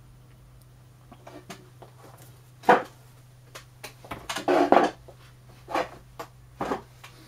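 A handful of short knocks and clatters of things being handled on a workbench, the loudest two about a third and two-thirds of the way in, over a low steady hum.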